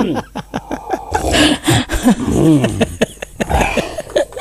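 A person's voice, with short vocal sounds and a few clicks near the start.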